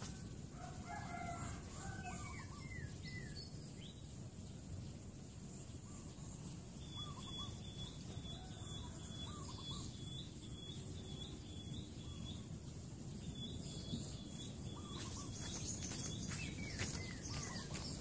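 Birds calling in the background over a steady low ambient rumble. A flurry of short sliding calls comes in the first few seconds, a thin high note repeats over and over through the middle, and more short calls come near the end.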